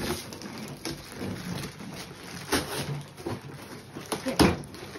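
Plastic packaging bags crinkling and cardboard packaging being handled, in irregular rustles and clicks, with one louder knock near the end.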